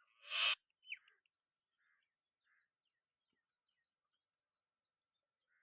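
A short, loud rush of noise in the first half-second, followed by a few faint, scattered bird chirps.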